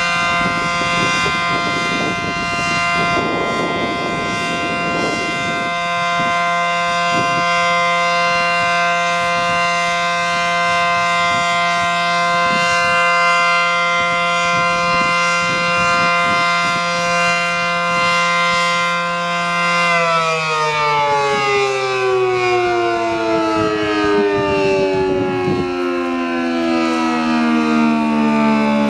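ACA Allertor 125 outdoor warning siren with 9- and 12-port rotors, sounding a steady two-note dual-tone chord for its full alert signal. About twenty seconds in, the pitch begins falling slowly and steadily as the siren winds down.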